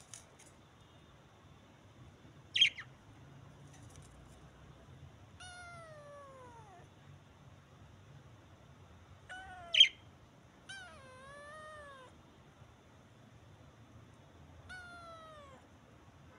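A kitten meowing four times. Each meow is drawn out for about a second, mostly falling in pitch, and one rises then falls. Two short, sharp budgerigar chirps, the loudest sounds, come about two and a half seconds in and about ten seconds in.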